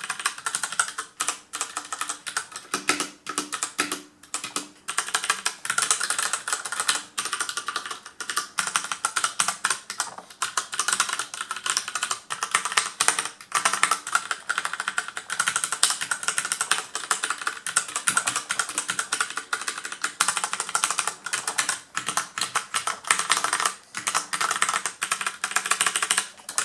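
Filco Majestouch 2 tenkeyless mechanical keyboard with Cherry MX Brown switches being hammered in fast, dense bursts of keypresses, rapid key spamming as in RTS play, with brief pauses between flurries.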